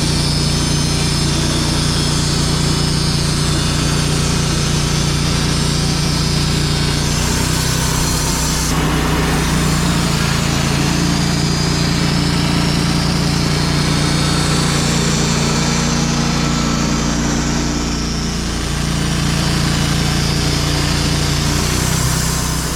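Wood-Mizer portable band sawmill running steadily under power, its engine tone shifting about a third of the way in and easing briefly before dropping off near the end.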